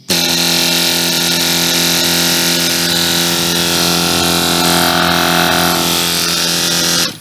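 CP twin-piston pneumatic flat-bed sander (air file) running free at full speed: a loud, steady, pitched hum over hissing exhaust air. It starts suddenly and cuts off suddenly after about seven seconds.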